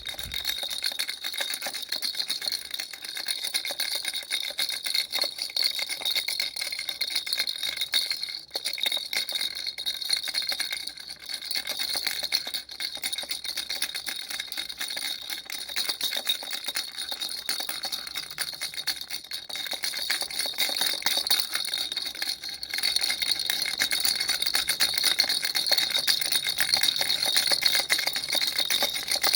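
A baby's toy elephant rattle shaken without a break: a fast, dense rattling with a bright ringing tone over it. It falls off briefly about 8 and 22 seconds in and is louder in the last few seconds.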